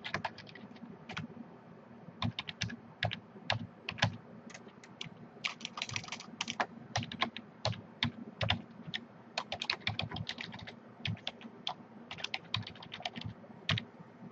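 Typing on a computer keyboard: quick, irregular runs of keystrokes with short pauses between them.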